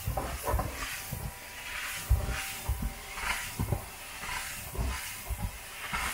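Hot-water carpet extraction on carpeted stairs: a stair tool hisses steadily as it sprays and vacuums, with irregular low thumps as it is worked over the steps.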